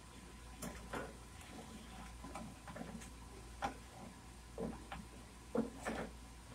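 A spatula knocking and scraping against a frying pan while stirring gravy, a string of irregular light knocks, with several louder ones in the second half.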